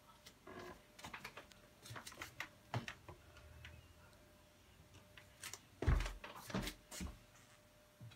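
Scattered clicks and knocks on a closed interior door, with a heavy thump about six seconds in and two more knocks right after it.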